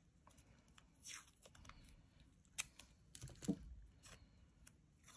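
Faint rustling and a few soft clicks of paper masking tape and its rolls being handled.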